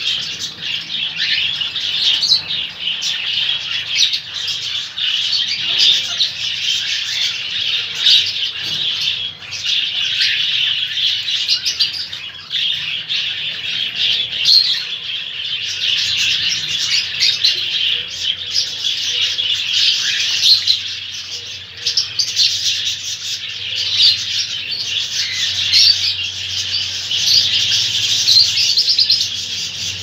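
A cage of small parrots (lovebirds, an Indian ringneck parakeet and a cockatiel) chirping and chattering without pause: a dense, high-pitched twittering that rises and falls constantly.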